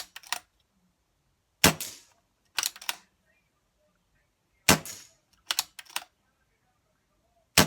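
Air rifle firing three shots about three seconds apart, each a sharp crack followed about a second later by a quick group of two or three metallic clicks as the action is cycled to load the next pellet.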